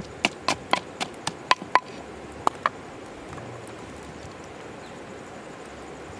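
Pestle pounding dried chilies and peppercorns in a mortar: sharp knocks about four a second, then two last strikes about two and a half seconds in, after which the pounding stops.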